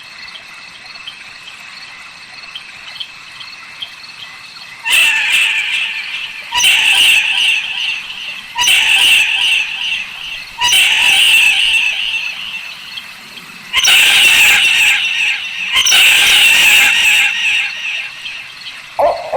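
Barn owl screeching: six harsh, hissing screams, each about one to two seconds long, coming every two seconds or so after a quiet start of about five seconds with faint high ticking.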